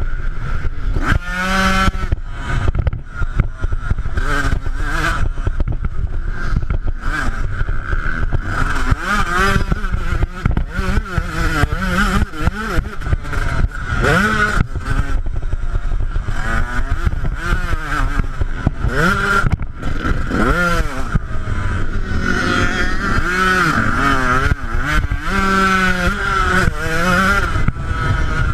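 Yamaha YZ125 two-stroke motocross bike's engine revving hard and dropping back again and again as the rider accelerates, shifts and rolls off around the track, over a constant low rumble.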